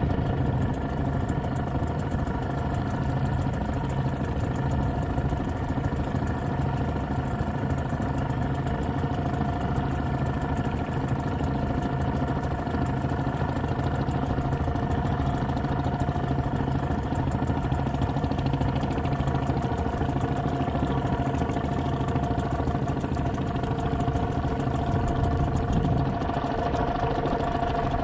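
Small fishing boat's engine running steadily while the boat moves across the water.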